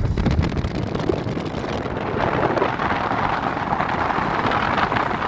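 Steady road and tyre noise heard inside a moving car, a rushing hiss that grows louder about two seconds in.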